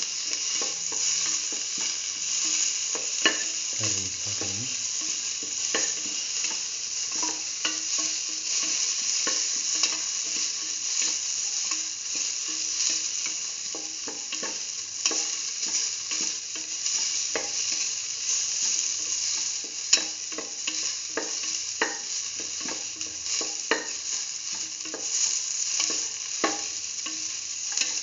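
Onion pieces sizzling as they sauté in hot oil in a steel pan. A spatula scrapes and taps against the pan again and again as they are stirred.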